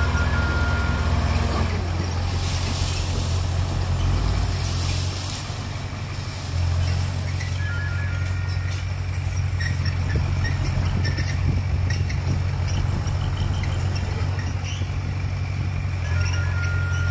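Dump truck's diesel engine running steadily while the tipper bed is raised to dump a load of soil, going quieter for a couple of seconds about five seconds in and then picking up again.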